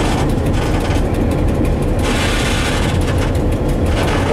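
Diesel locomotive running along the track, heard from inside the cab: a steady engine and wheel rumble. A short hiss cuts in about two seconds in.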